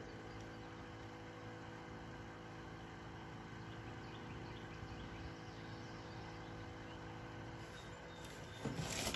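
Faint steady outdoor background hum with light scattered ticks, then a brief loud rustle and bump near the end, typical of the phone being handled.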